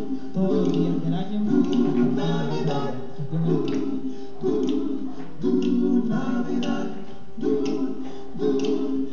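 A male a cappella vocal group singing close-harmony chords in a rhythmic pattern, the chords changing about once a second with short breaks between, heard through a television speaker.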